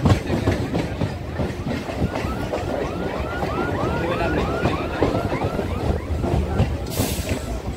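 Electric suburban local train running, heard from inside the coach: a dense rumble with rattling from the carriage and wheels. In the middle comes a run of short chirping glides, about three a second. A brief hiss follows near the end.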